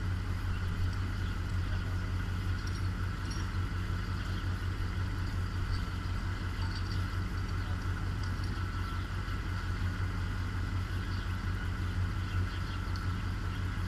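An engine running steadily: a constant low hum with a fast, even pulse and a faint steady whine above it.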